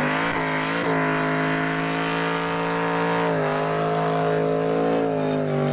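Supercharged 6.2-litre Hemi V8 of a Hellcat-swapped Mazda Miata held at high, steady revs during a burnout, with tyre noise under the engine note. The revs dip slightly past halfway and fall away at the very end.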